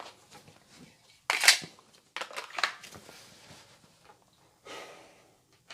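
Handling noises of a pistol and its gear between dry-fire reps: a loud scraping click about a second and a half in, a few sharp clicks around two seconds in, and a short rustle near the end.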